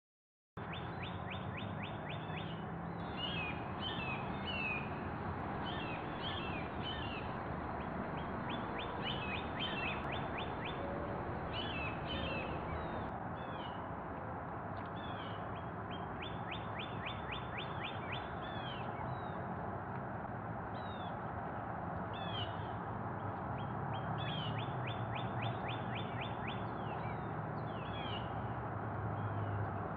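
Several small birds singing and chirping, with a fast, even trill of repeated notes lasting a second or two and recurring every seven or eight seconds, over a steady background hiss.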